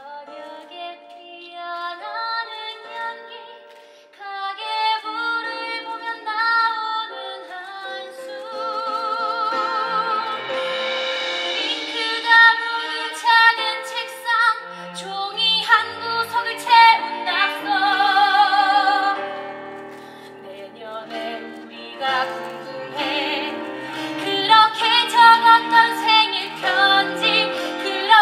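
Female voice singing a musical-theatre ballad live, with vibrato on the long held notes, over instrumental accompaniment.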